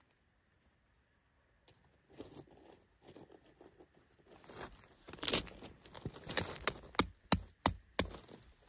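Camping gear being handled while a tent is pitched: soft rustling at first, then from about halfway through a run of sharp metallic clinks, about three a second.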